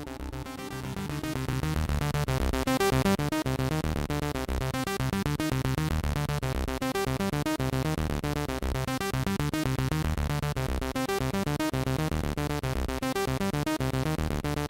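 Background music with a steady beat, growing louder over the first two seconds.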